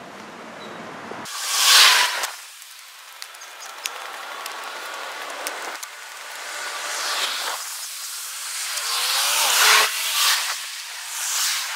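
Vehicles passing one after another, each a swell of hissing tyre and engine noise; the loudest goes by about two seconds in, and others come near the middle and towards the end.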